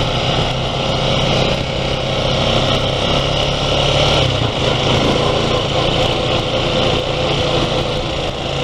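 ATV (four-wheeler) engine running steadily while riding, over wind and gravel noise; the engine's low note falls away about halfway through.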